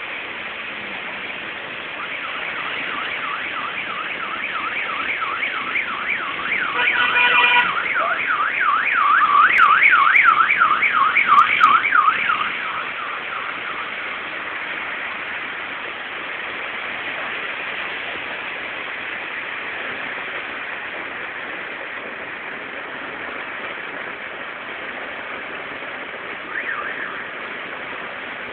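Heavy rain with small hail falling in a steady hiss. Over it a car alarm warbles quickly up and down, about three times a second, growing louder before it stops about halfway through.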